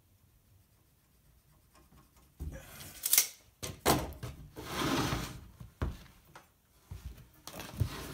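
Wooden boards being moved and set down on sawhorses: a series of wood-on-wood knocks and thunks with a brief scraping slide, starting about two seconds in, the sharpest knock about three seconds in.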